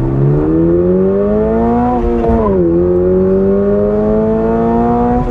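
2022 Toyota GR86's naturally aspirated 2.4-liter boxer four-cylinder accelerating through the gears: the engine note rises, drops quickly with an upshift about two seconds in, then rises again in the next gear.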